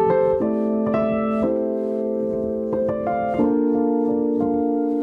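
Background piano music: sustained chords that change about every second or so.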